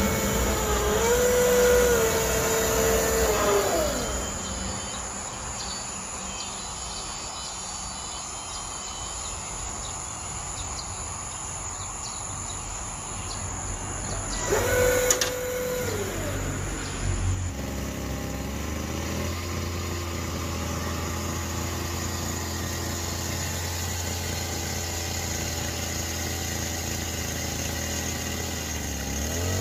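Electric drive motors of a homemade radio-controlled crane whining as the boom moves, the pitch rising and falling in two spells, with quieter pauses between. Later a steady low hum runs on, and near the end another whine starts to rise.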